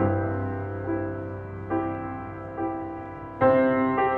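Background music on a piano: slow chords struck about once a second and left to ring out, with a louder chord near the end.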